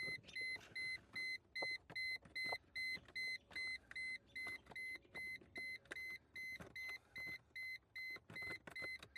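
Electronic warning chime of a 2002 Mercedes C240 beeping steadily, a single high tone repeated about three times a second, with a few faint knocks of handling underneath.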